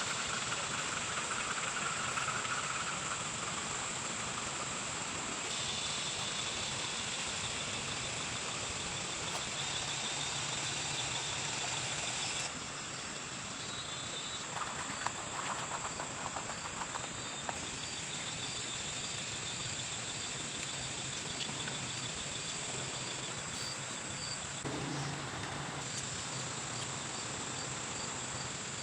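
Steady high insect chirring over an even rushing of running stream water, with a few light clicks and taps about halfway through.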